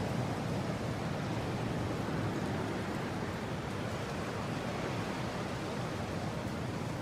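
Steady wind, a deep, even rushing with no gusts or whistling.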